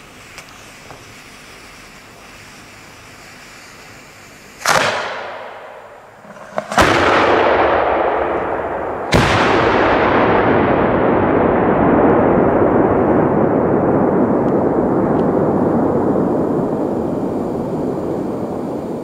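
Three loud firework salute bangs a couple of seconds apart, each followed by a rolling echo; the last echo rumbles on and fades slowly over about ten seconds.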